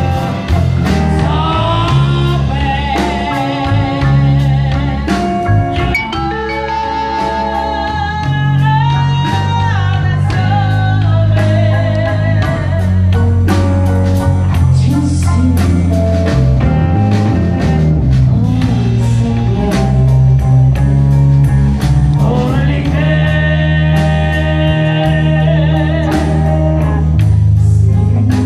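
Live blues band playing: a woman singing over electric guitar, electric bass and drum kit.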